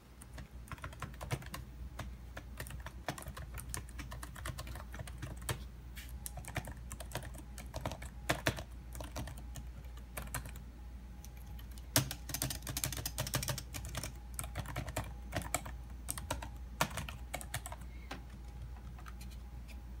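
Continuous typing on the IBM ThinkPad 701c's "butterfly" expanding laptop keyboard: a dense, irregular patter of key clicks, at its loudest and busiest a little past the middle.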